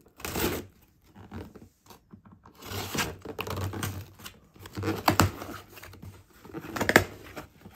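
A cardboard shipping box being opened: a utility knife slits the packing tape, then the flaps are torn back and pulled open, with scraping, tearing and crinkling and a couple of sharp snaps.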